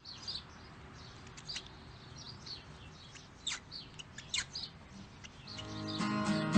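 Pet cockatiels chirping: short, high, falling chirps at an uneven pace, sometimes several in quick succession. Strummed guitar music fades in near the end.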